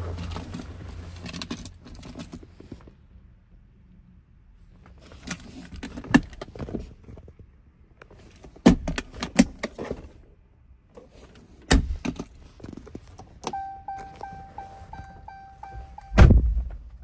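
Interior trim of a Ram 3500 pickup's cab being handled: the center console lid and storage bins opened and shut, giving a scatter of plastic clicks and thunks. Near the end, an electronic chime pulses about three times a second for nearly three seconds and stops at a heavy thunk.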